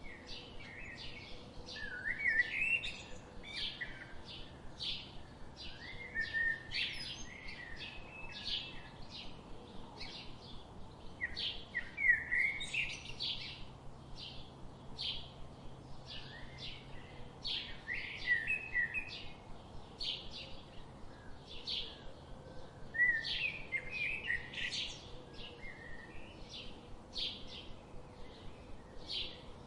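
Small songbirds chirping: a steady run of short, high chirps about twice a second, with louder warbling song phrases breaking in every few seconds.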